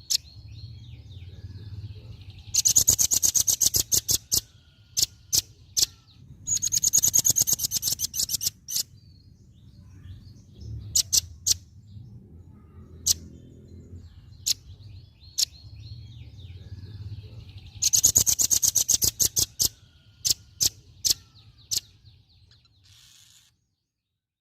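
Velvet-fronted nuthatch calling: three rapid rattling trills of sharp, high notes, with single hard chips scattered between them.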